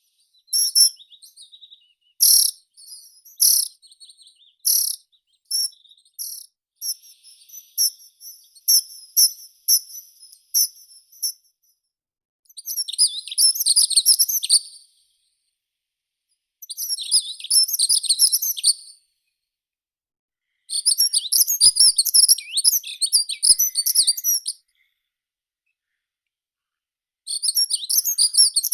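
Meadow songbirds singing. First comes a string of short, high chirps. From about halfway through, four bursts of fast, twittering song follow, each a few seconds long with short pauses between.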